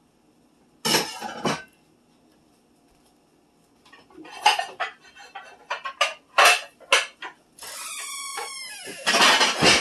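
Dishes and silverware clinking and clattering as they are taken from a dish drain and put away, a couple of knocks early on and a quick run of clinks in the middle. Near the end a drawn-out squeal that slides in pitch, then a loud rattle.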